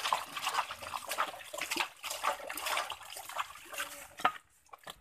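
Soapy water splashing and sloshing in a plastic tub as a hand scoops and rubs water over an Asian palm civet being washed, in quick irregular splashes. A single sharp knock sounds about four seconds in, after which the splashing dies down.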